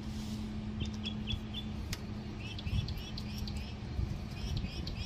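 Small birds chirping: a few short, quick notes about a second in, then a run of rapid, downward-sweeping chirps through the second half, over a steady low hum.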